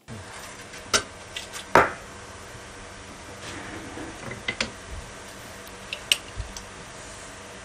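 Hard objects handled on a wooden workbench: a few sharp knocks and clinks of metal and glass, the loudest about two seconds in, then lighter clicks as the lid of a small glass jar is handled.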